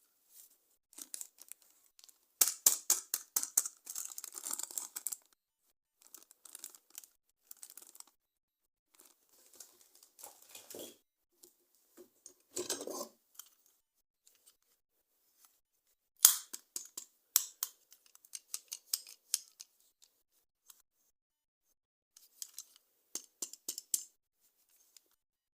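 Close-miked unboxing of toy packaging: irregular bursts of crinkling, tearing and clicking of plastic and cardboard, with short pauses between.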